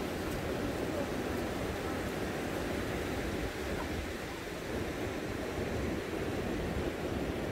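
Steady rush of sea surf on a beach, mixed with wind.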